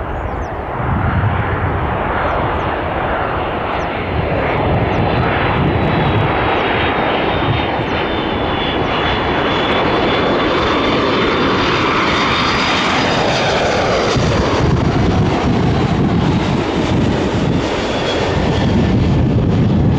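Airliner passing close by: a steady, loud engine roar with a high whine that sinks slightly in pitch. Wind gusts buffet the microphone.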